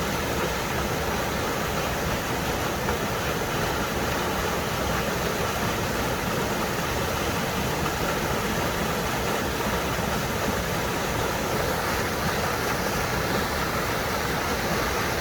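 Waterfall rushing: falling water making a steady, even noise with no change.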